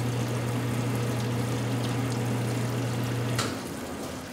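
Wilton horizontal bandsaw just after finishing its cut: a steady low machine hum stops abruptly with a click about three and a half seconds in, leaving a softer hiss.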